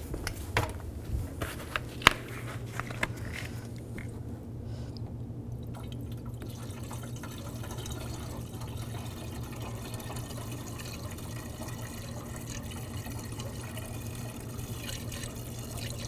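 A few clicks and knocks in the first seconds, then washer fluid pouring steadily from a plastic jug into a car's windshield washer reservoir.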